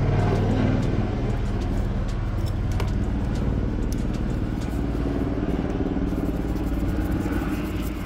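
A steady low engine rumble in the background, with a few faint light clicks.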